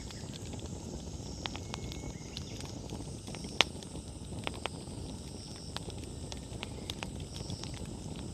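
Wood fire burning with a steady low rush of flame and scattered crackles and pops from the firewood; the loudest pop comes about three and a half seconds in.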